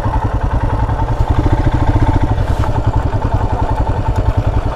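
Royal Enfield Himalayan's single-cylinder engine running at low revs, with a rapid, even thumping of about ten beats a second.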